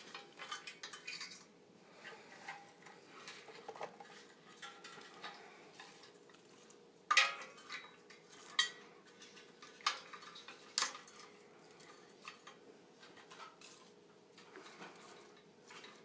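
Dry twigs being put into the BioLite stove's metal burn chamber: light rustling and scraping with several sharp clicks of wood against the metal, the loudest about seven seconds in.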